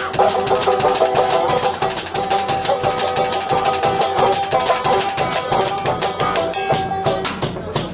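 Live band playing: banjo and drum kit with a quick, clicky percussion beat under several held notes, which drop out shortly before the end.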